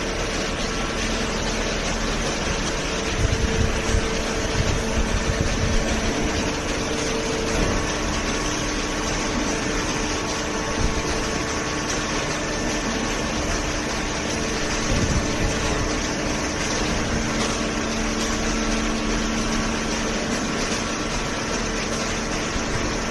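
Hydraulic baler running: a steady machine noise with a hum from the motor and pump, and a few louder knocks about three to six seconds in.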